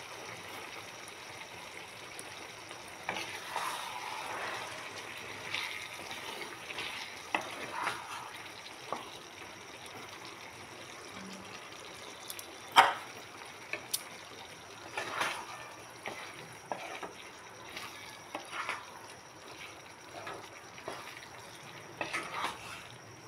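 Banana curry in thick tomato gravy bubbling softly in a non-stick pan, with a spatula now and then stirring and scraping through it. A sharp knock of the spatula against the pan about halfway through is the loudest sound.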